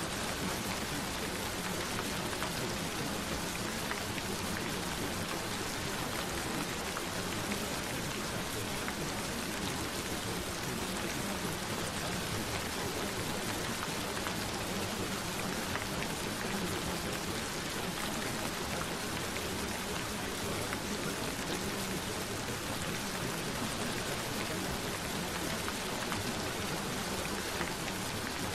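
Steady gentle rain, an even hiss of falling drops with scattered faint drop ticks.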